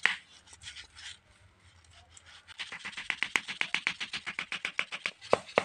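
A sharpened wooden peg being knocked down into the centre of a tightly bound lidi (coconut-leaf-rib) broom head with a hand-held block. There are a few separate knocks at first, then from about two and a half seconds in a quick run of light taps, around nine a second.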